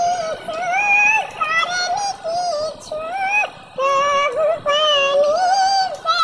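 A high-pitched voice singing a Bengali Muharram lament, in phrases of held, wavering notes with short breaks between them.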